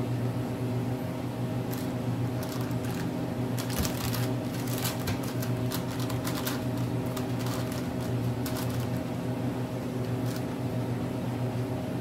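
Hard-candy cough drops being handled and picked off paper, making scattered crackles and light clicks over a steady low electrical hum.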